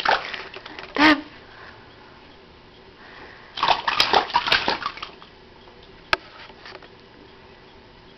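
A baby's hands slapping and splashing the shallow water of an inflatable baby bath, in a quick run of splashes about three and a half seconds in. A brief squeal comes about a second in.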